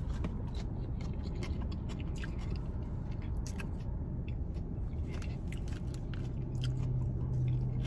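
A person chewing food with the mouth closed, close to the microphone: a string of small wet mouth clicks and smacks over the low hum of a car's cabin.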